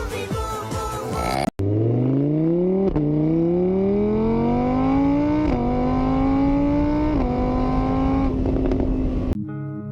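Car engine accelerating hard through the gears: the pitch climbs, drops back at each of three gear changes, then holds steady before cutting off suddenly near the end.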